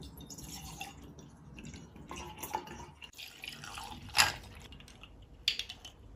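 Bottled oat-latte coffee drink pouring from a glass bottle into a glass measuring jug, then from the jug over ice cubes in a glass. There is a sharp clink about four seconds in and another near the end.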